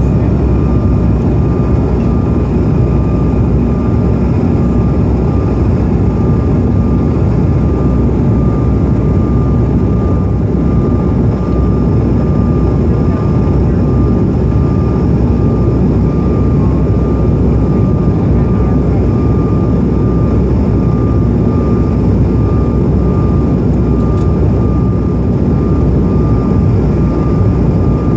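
Steady cabin roar inside a Bombardier CRJ-900 regional jet in flight: rushing airflow and its rear-mounted General Electric CF34 turbofans. A thin steady whine runs over the deep roar.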